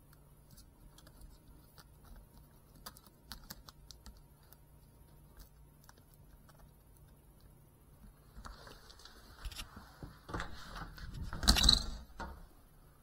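Faint scattered clicks, then a rush of noise that builds from about eight seconds in and peaks about a second before the end as the 3.5-inch GEPRC FPV drone lifts off and flies.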